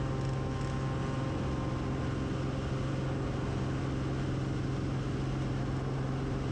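A 1957 Cessna 180's six-cylinder Continental O-470 engine and propeller running at full climb power just after takeoff: a steady, unchanging low drone.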